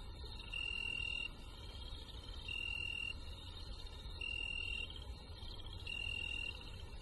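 Night forest ambience of crickets trilling, with a steady high note of about half a second repeating four times, roughly every second and a half to two seconds, over a low rumble.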